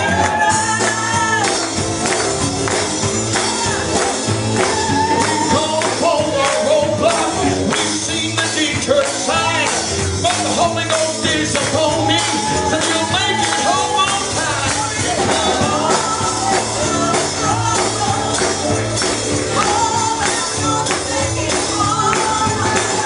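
Live gospel band performing: a lead vocalist singing over drums and keyboard, with steady percussion keeping the beat.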